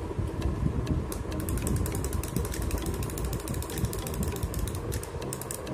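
Small plastic monkey toy's gear mechanism clicking rapidly and evenly, a mechanical ratcheting run that starts about a second in.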